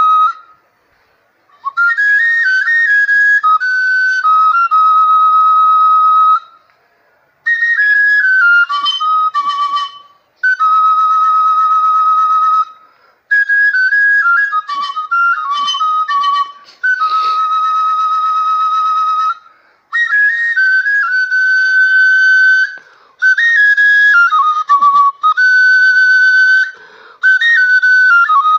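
Igbo oja, a small carved wooden flute, played in short melodic phrases separated by brief pauses. Many phrases step downward and end on a long held note with a wavering vibrato.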